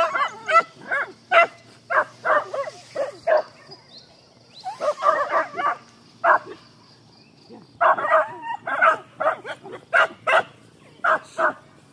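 Hunting dogs barking: short, sharp barks in quick clusters with brief pauses between them. A steady high insect drone runs underneath.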